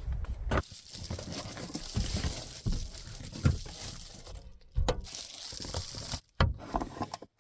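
Rustling and crinkling with scattered light knocks and clicks as things are handled at close range, the sound breaking off abruptly several times near the end.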